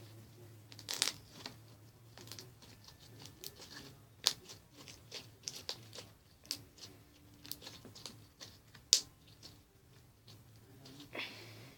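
Slime being handled by hand: irregular sticky clicks, crackles and pops as it is stretched and squeezed, with two sharper snaps about four and nine seconds in. A faint steady low hum lies underneath.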